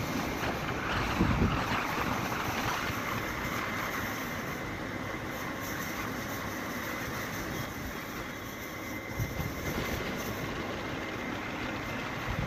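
Steady motorcycle riding noise: wind rushing over the microphone with engine and tyre noise underneath, a little louder about a second in.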